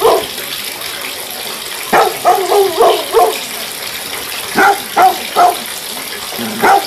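Steady rush of running water, like a tap filling a tub. Over it a dog barks in three short runs: five barks about two seconds in, three more a little later, and one near the end.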